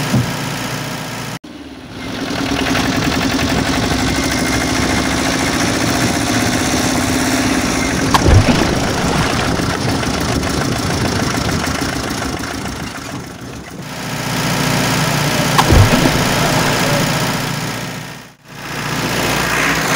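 Truck engine sound effect running steadily at idle, cutting out abruptly twice, about a second in and near the end. A couple of short low thumps come about eight and sixteen seconds in.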